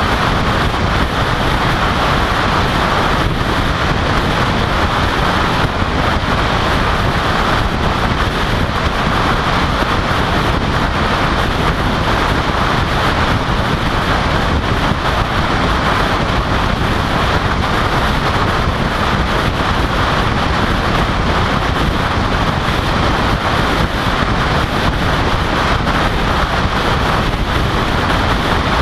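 Wind rushing over the microphone of a camera mounted on the outside of a car at highway speed, mixed with tyre and road noise: a loud, steady rush with no breaks.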